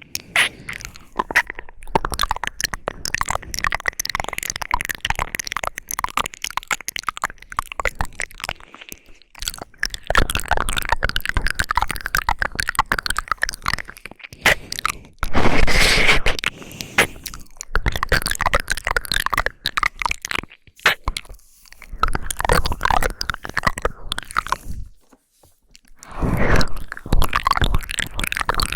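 Close-miked ASMR crackling: dense, irregular clicks and crackles coming in bursts, louder about halfway through and again near the end, with a short lull just before the end.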